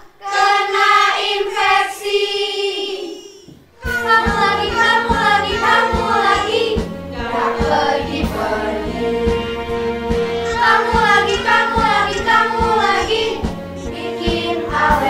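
A short sung vocal line, then about four seconds in a children's song with a steady beat starts, a choir of children singing over it.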